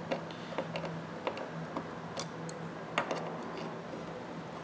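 Small screwdriver tip clicking and scraping against the steel parts inside a Craftsman ratchet head as the gear is worked out, a string of light, irregular metal clicks.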